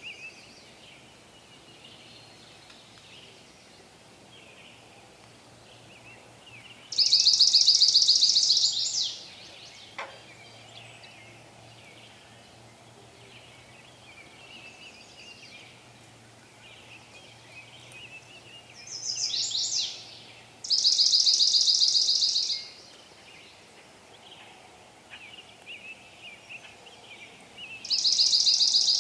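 Forest birdsong: a songbird sings a loud, high, rapid trill lasting about two seconds, three times (about a quarter of the way in, about two-thirds through, and at the very end). Softer, scattered chirps from other birds carry on between the trills.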